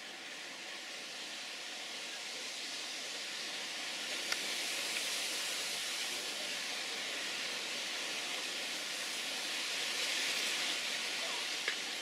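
Steady, even outdoor hiss that swells slowly and eases off near the end, with a couple of faint clicks.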